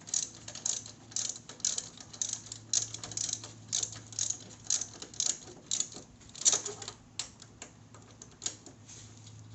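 Ratchet wrench clicking in steady strokes, about two to three clicks a second, growing fainter and sparser after about seven seconds, over a steady low hum.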